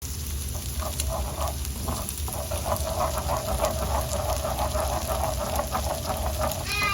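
Food sizzling and crackling in a frying pan, a dense run of small pops over a low hum.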